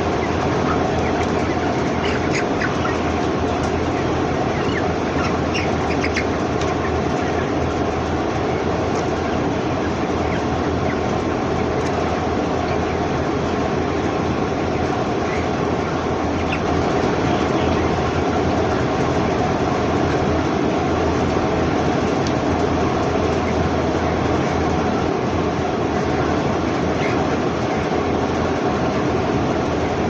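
A large flock of 22-day-old broiler chickens cheeping over a loud, steady mechanical drone inside the broiler shed.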